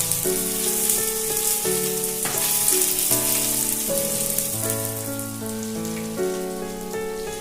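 Capsicum and onion frying in hot oil in a pan, sizzling steadily, with light stirring strokes. Background music with held notes plays over it.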